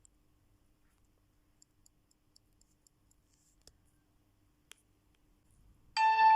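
Near silence with a few faint clicks, then a smartphone's melodic ringtone starts loudly about six seconds in, several tones sounding together with the notes changing.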